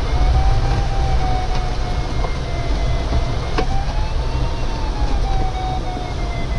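Airflow rushing over the canopy of a DG505 glider in flight, with the variometer's continuous electronic tone sliding slowly up and back down in pitch as the glider's rate of climb or sink changes. A single sharp click about three and a half seconds in.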